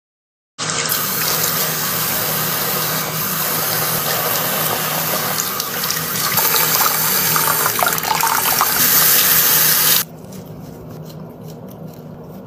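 Sink faucet running, its water splashing onto a wet cat's fur as a steady rush. The flow stops about ten seconds in.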